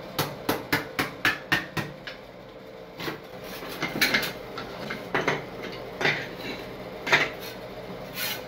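Hammer and chisel knocking loose cracked ceramic shower-floor tiles: a quick run of about eight sharp taps in the first two seconds, then scattered knocks and clinks of tile pieces.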